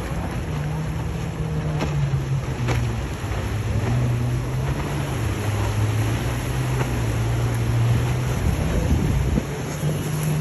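Motorboat engines running with a steady low drone whose pitch shifts a few times. Wind buffets the microphone and wake water washes underneath.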